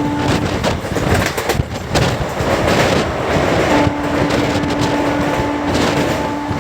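Express passenger train running at speed: wheels clicking and rattling on the rails under a steady rush of noise, with a steady hum that fades out for a few seconds midway and comes back.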